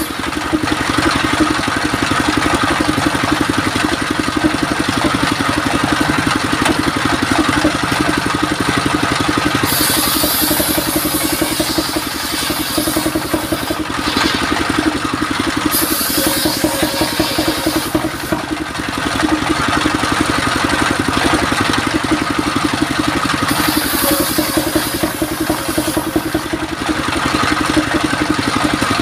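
Sawmill engine running steadily, driving a circular saw by belts. Three times the saw rips through mahogany, adding a bright high hiss: about a third of the way in, just past halfway, and near the end.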